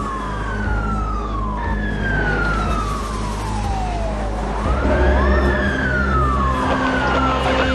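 Several police sirens wailing at once, each slowly rising and falling in pitch, over a low rumble of street traffic that grows louder about halfway through. Near the end a siren switches to a fast yelp.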